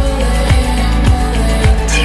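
Music track with a steady kick drum, a little under two beats a second, each hit falling in pitch, over a held bass and layered synth-like tones.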